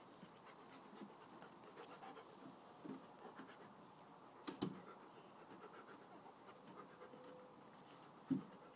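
Faint panting and scuffling of an Alaskan malamute and a Northern Inuit pup at play, with a couple of short thumps, the louder one near the end.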